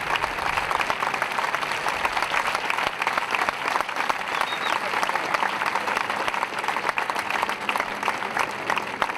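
Crowd of spectators applauding: many hands clapping in a dense, steady stream.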